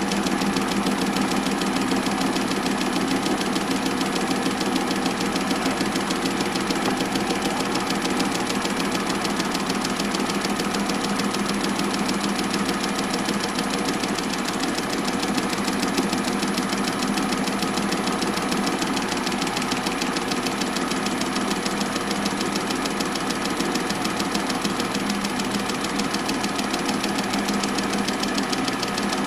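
Small metal lathe running steadily, a constant hum with a fast, even flutter, while a tiny carbide center drill cuts a center hole into the end of a fine steel pivot wire.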